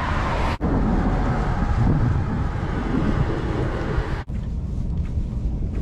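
Steady road and engine noise of a small camper van driving, with wind buffeting the microphone. The sound drops out very briefly twice.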